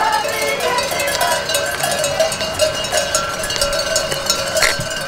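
Many bells on a flock of sheep ringing and clanking together in a continuous jangle as the flock is driven along a road.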